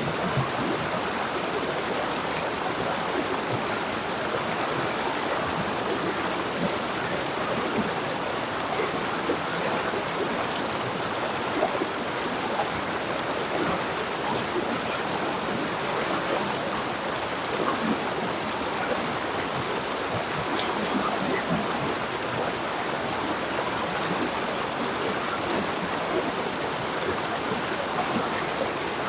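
River water flowing and splashing over rocks: a steady, even rushing with small gurgles throughout.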